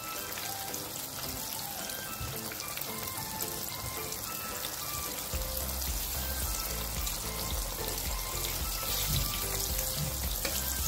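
Background music with short melodic notes, and a low bass beat coming in about five seconds in, over the steady sizzle of cornstarch-coated fish pieces deep-frying in hot oil in a wok.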